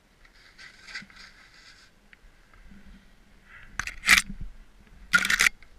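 Skis scraping and hissing over snow as a skier slides down a steep, tight tree run, with a soft hiss early on and several short, loud scrapes in the second half.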